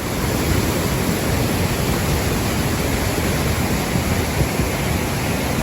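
Duduma waterfall's falling water, a steady rushing noise.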